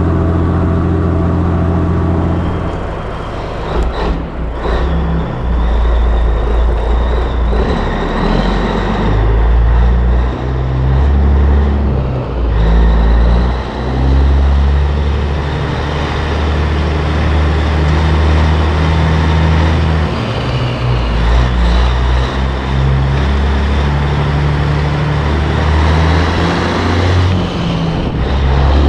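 Semi truck's diesel engine running as the tractor-trailer rolls along, with road and trailer noise; the engine note steps up and down several times.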